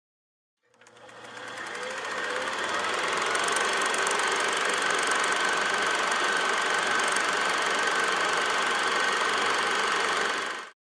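Film projector running, a steady fast mechanical clatter with a whine. It fades in over the first two seconds or so and cuts off just before the end.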